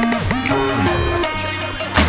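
Instrumental background music with held notes and a few sliding pitches.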